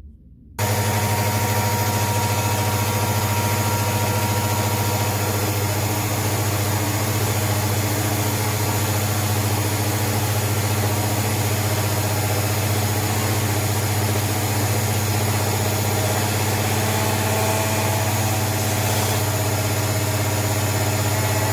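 A 1500-watt Fox router mounted in a router table switched on about half a second in and running steadily at high speed, with a loud, constant hum and whine.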